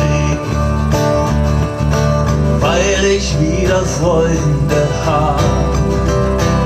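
A live trio playing a folk-rock song: two strummed acoustic guitars over an electric bass, at a steady, full level.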